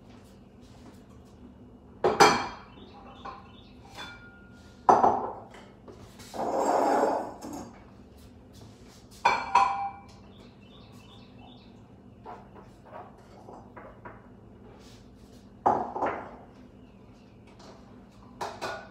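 Ceramic and glass decor being set down and shifted on a granite kitchen countertop: about five separate clinks and knocks, with a longer scrape midway.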